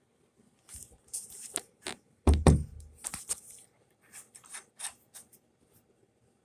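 Barn door hardware being handled and fitted: a scattered run of sharp clicks and knocks, with one heavy thump a little over two seconds in.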